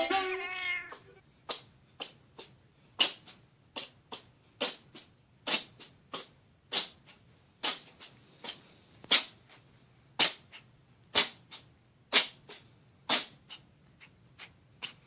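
A long run of short, sharp clicks, roughly two a second and unevenly spaced, often a louder click followed closely by a weaker one. A pitched, wailing tone fades out in the first second.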